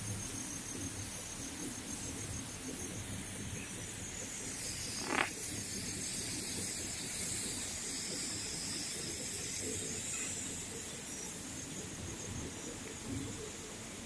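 Steady high-pitched chorus of insects in grassland and forest, with a low rumble underneath. A single short click sounds about five seconds in.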